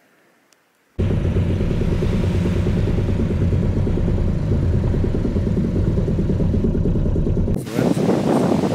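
Small outboard boat motor running steadily, starting abruptly about a second in. Near the end it cuts to a different, brighter sound.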